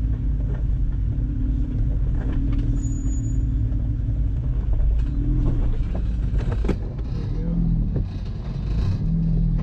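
Jeep engine running at low revs as it crawls over rocks, with a few sharp knocks from the rocky trail along the way.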